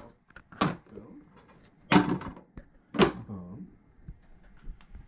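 Hard plastic knocks and clatter of a Nerf blaster and its parts being set into a plastic toolbox: three sharp knocks about a second apart, the middle one loudest, with light clicks between.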